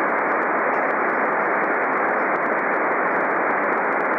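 Steady receiver hiss from a Kenwood transceiver in SSB mode on the 23 cm (1296 MHz) band, dull with no treble. The receiver is listening for the other station's reply over the Earth-Moon-Earth path, and no signal is heard yet.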